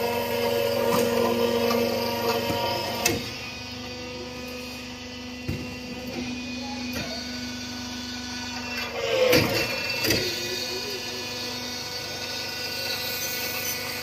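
Machinery running steadily with a hum, over which come a few short knocks. The hum's lower tone drops out about nine seconds in, just as a louder, brief sound comes.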